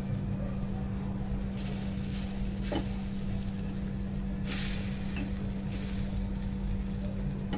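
Sauce sizzling in small earthenware bowls of balut set over a gas burner, over a steady low hum. The hiss swells twice, about a second and a half in and again past the middle, and chopsticks tap a bowl once near the middle as the eggs are turned.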